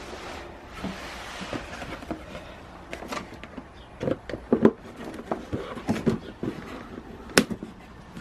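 Seed packets being handled: irregular light knocks, clicks and rustling, with the loudest knocks a little past halfway and a single sharp click near the end.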